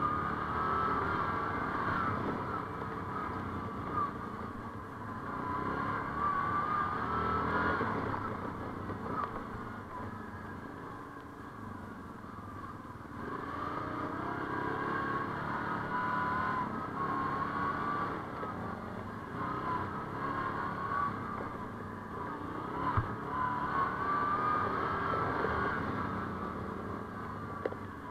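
ATV engine running while riding, its pitch rising and falling as the throttle is worked, easing off for a few seconds in the middle. A few sharp knocks come about two-thirds of the way in.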